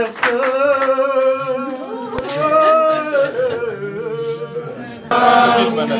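Singing voices holding long, wavering notes, with a sudden louder change about five seconds in.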